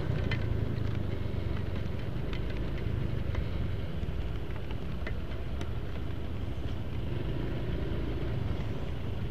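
Honda Vario 125 scooter's single-cylinder engine running at low speed in slow traffic, a steady low rumble mixed with the engines of the motorcycles and cars around it. Scattered light ticks of rain hitting the camera in the first few seconds.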